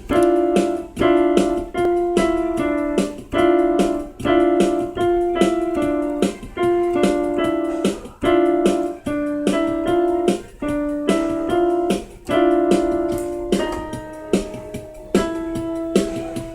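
Electronic keyboard playing its built-in country pop style accompaniment: a repeating pattern of keyboard chords over regular percussive beats.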